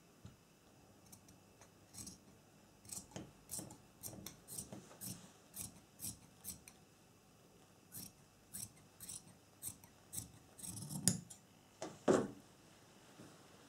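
Large dressmaking shears snipping through four layers of chiffon and lining fabric, about two cuts a second with a short pause partway through. There is a louder knock near the end.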